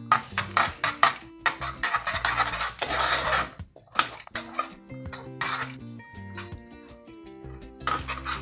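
A metal spoon stirring cornmeal into hot soup in a pan, clinking and scraping against the pan in quick, irregular strokes. Background music plays underneath.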